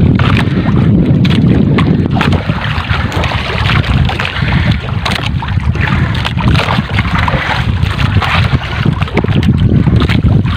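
Strong wind buffeting the microphone aboard a small outrigger fishing boat on choppy sea: a loud, steady rumble with water washing underneath.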